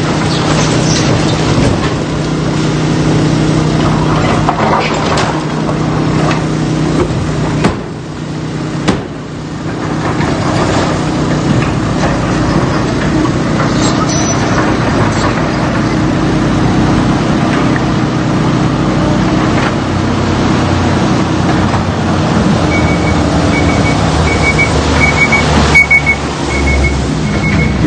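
Heavy vehicle engine running steadily, with a brief dip about 8 seconds in. Near the end a steady run of high-pitched beeps joins it, like a reversing alarm.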